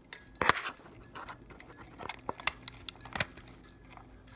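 Hard plastic and metal parts of a ceiling fan light kit being handled as a wire connector is unplugged. A loud knock comes about half a second in, followed by several sharp clicks and small rattles.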